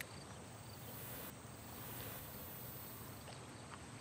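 Faint outdoor ambience with insects: a high-pitched buzzing drone that strengthens about a second in and stops a little after three seconds.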